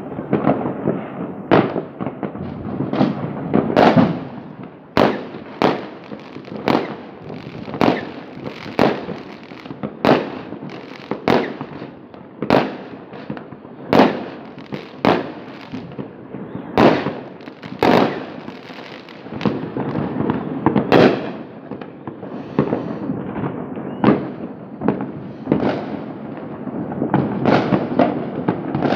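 Many fireworks going off: sharp bangs about once a second, over a continuous rumble and crackle of more distant ones.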